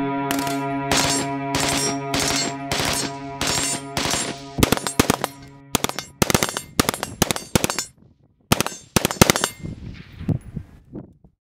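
AR-style rifle gunfire: a steady run of shots, about two to three a second, over a held music chord that stops about six seconds in. Then come louder, rapid strings of shots with short gaps, and the last few shots fade out near the end.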